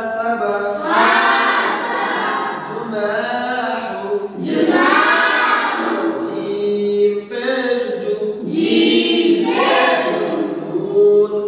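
A group of boys chanting together in unison, a melodic group Quran recitation in phrases of a few seconds, with short breaks between phrases.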